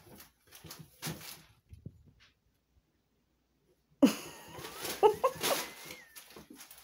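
A mother cat and her kitten play-fighting in an empty bathtub: soft scuffling of paws on the tub, then nothing for under two seconds. About four seconds in comes a sudden louder tussle with short, pitched cat cries.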